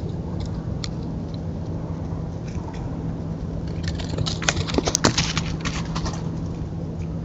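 Raccoons walking past, their footsteps rustling and crackling on the ground in a cluster about four to six seconds in, over a steady low hum and background hiss from the trail camera's microphone.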